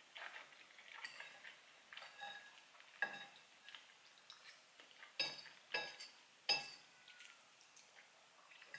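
Metal fork clinking and scraping against a ceramic pasta bowl while spaghetti is twirled and picked up, with one sharp clink about three seconds in and three more between five and six and a half seconds.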